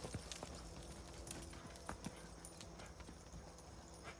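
Faint, irregular hoofbeats of a ridden horse cantering on soft sand.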